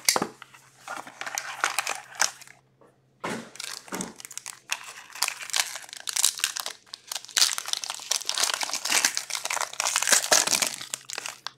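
Plastic shrink wrap crinkling and tearing as it is peeled off a sealed hockey card box, in irregular crackling handfuls with a short pause about two and a half seconds in.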